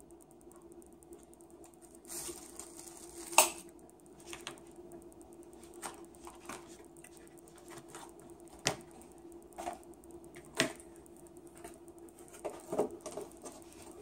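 Scattered clicks, taps and light knocks of plastic takeout containers and a metal fork being handled on a table, with a sharp knock about three and a half seconds in and a quick cluster of clicks near the end. A steady hum runs underneath.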